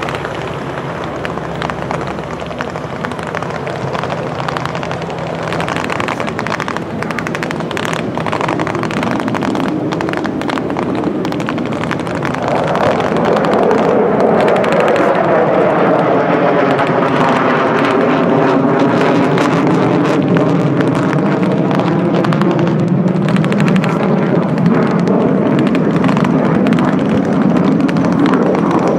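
Lockheed C-130 Hercules running its four Allison T56 turboprop engines, a loud propeller drone. It grows louder about halfway through, with a wavering tone that sweeps up and down.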